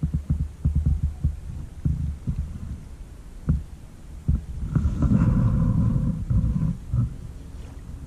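Wind buffeting the microphone: irregular low rumbles and thumps, with a louder, steadier gust lasting about two seconds in the middle.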